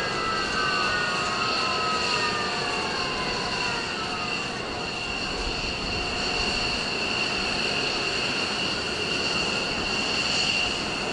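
F-15 jet engines idling on the flight line: a steady high whine over a broad rumble, with several descending whines during the first few seconds.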